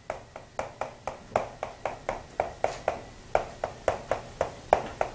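Writing on a board during a lecture: a quick, uneven run of short taps and clicks as the writing tool strikes the board, roughly four or five a second.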